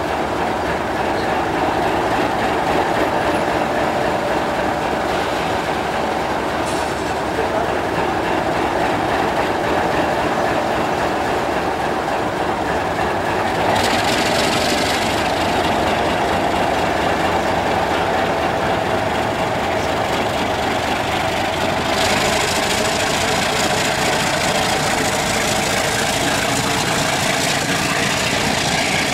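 Diesel engine of CP 1510, an Alco RSC-2 rebuilt with a 12-cylinder Alco 12-251 engine, running hard as the locomotive pulls away with a passenger train. The sound grows brighter about halfway through and again about three-quarters of the way through.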